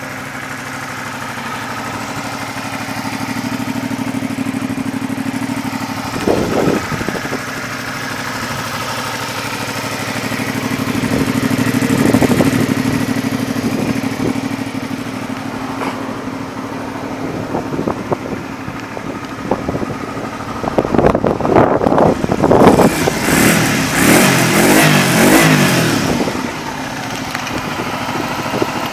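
Kawasaki Eliminator 250V's liquid-cooled V-twin idling steadily through an aftermarket muffler, louder for a few seconds in the middle. Near the end, a loud irregular rustling noise lies over the engine for several seconds.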